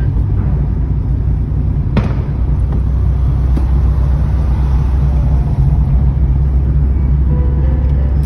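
Steady low rumble of a car driving, heard from inside the cabin, with one sharp click about two seconds in.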